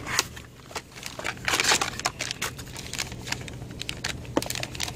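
Plastic bags and packaging crinkling and rustling with scattered clicks and taps as a hand rummages in a cardboard box. The rustling is loudest about one and a half seconds in, over a steady low hum.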